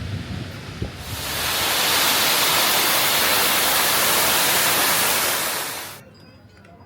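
Loud, steady rushing of falling water that comes in about a second in and cuts off abruptly near the end, with wind buffeting the microphone before it.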